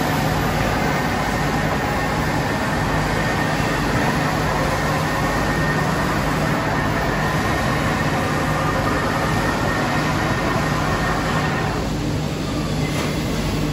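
Heyligenstaedt Heynumat 21U CNC lathe running under power: a steady mechanical hum with a low drone, and a faint high whine that drops away about twelve seconds in.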